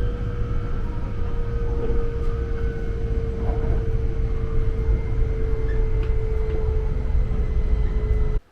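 Hokuriku Shinkansen train running, a steady low rumble under a motor whine that sinks slightly in pitch; the sound cuts off abruptly near the end.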